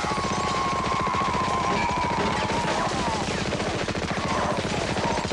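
Long, continuous burst of rapid machine-gun fire, many shots a second, with a held high tone running through it.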